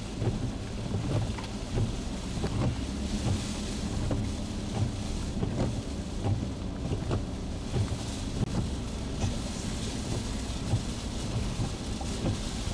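Strong hurricane winds buffeting the microphone in uneven gusts, making a low rumble over a steady hiss of wind-driven surf and rain.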